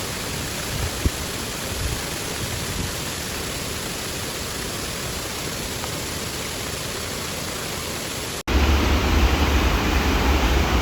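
Steady rush of falling water from a waterfall. A sudden cut a little over eight seconds in brings a louder rush with a deep rumble underneath.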